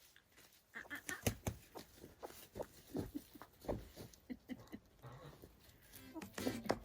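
Footsteps: a run of soft, irregular steps with a little rustling.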